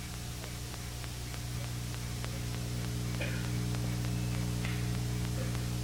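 Steady electrical mains hum over a constant hiss, growing slightly louder.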